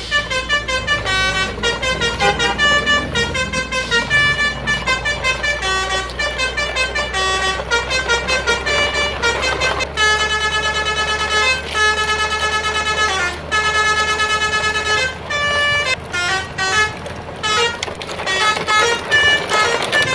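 Musical multi-tone vehicle horn tooting a quick melody, its notes stepping up and down in short blasts over a steady low hum.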